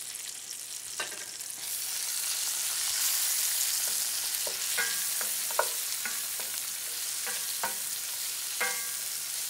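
Sliced onions, garlic, ginger and chopped chipotle sizzling in hot fat in an enamelled braising pot. The hiss swells about one and a half seconds in. A wooden spoon stirs and scrapes the pan bottom with several sharp knocks in the second half, picking up the crispy browned bits left from searing.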